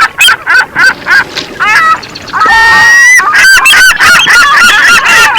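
A flock of geese honking: a quick run of separate honks, then from about two and a half seconds in a dense, overlapping chorus of honks.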